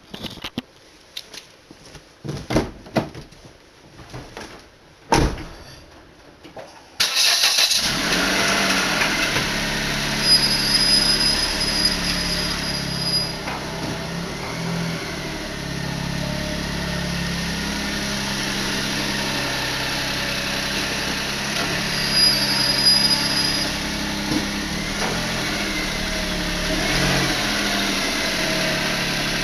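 Several clicks and knocks, then a Daihatsu Move LA110S's three-cylinder engine starts about seven seconds in and idles steadily. Twice it is joined by a high-pitched brake squeal, first for about three seconds and later for about a second and a half: the squeal of worn brake pads as the brake is released.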